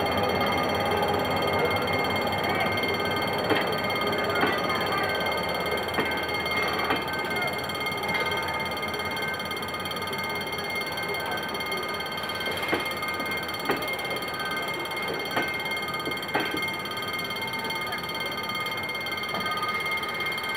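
Level-crossing warning alarm ringing steadily as passenger coaches roll slowly past. Scattered sharp clacks of the wheels come through over it.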